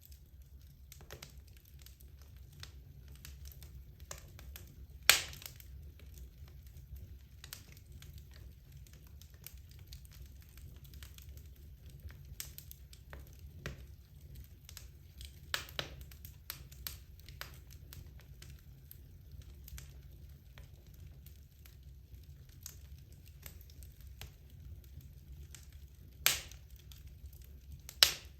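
Wood logs burning in a fireplace: a steady low rumble of the fire with constant light crackling and a few sharp, louder pops, about four in all.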